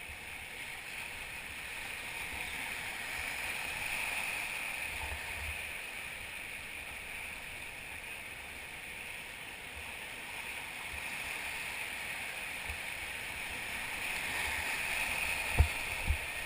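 Whitewater rushing steadily, swelling twice, with two sharp knocks near the end.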